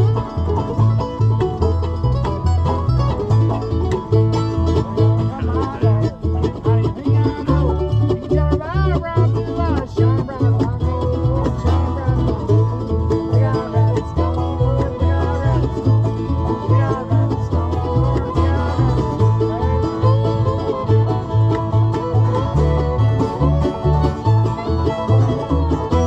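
Acoustic bluegrass band playing an instrumental: banjo picking over strummed guitar, with a fiddle and a steady low bass line on the beat.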